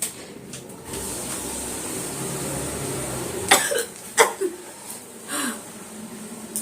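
A woman sneezing: a steady rushing sound for about two and a half seconds, then two sharp sneezes close together about halfway through and a softer third burst a second later.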